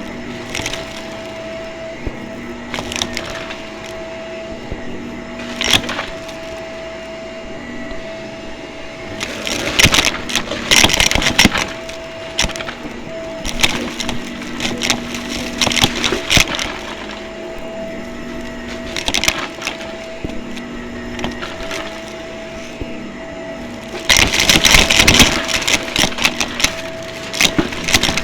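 Vacuum cleaner running with a steady motor hum, with bursts of crackling and rattling as debris is sucked up, loudest about a third of the way in and again near the end.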